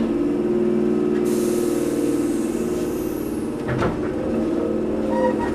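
Resistance-controlled Toyohashi Railway 1800 series electric train (ex-Tokyu 7200 series) heard from inside the car, its motors and running gear humming steadily as it pulls away. A hiss of air comes in about a second in and fades, and there is a sharp click near four seconds.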